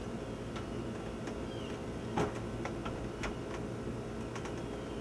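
Scattered light knocks and clicks of a wooden 2x10 header being handled and pressed against the wall framing, the loudest knock about two seconds in.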